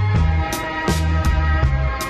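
Background music with a steady beat, about three drum strokes a second, over a bass line that changes note every half-second or so.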